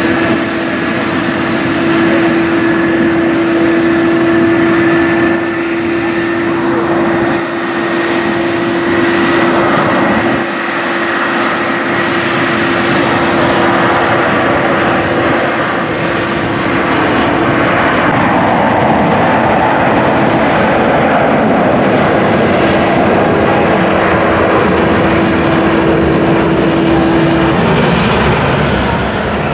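Boeing 777 jet engines: a steady, loud roar as a 777 begins its takeoff roll, with a steady engine whine over it that stops near the end.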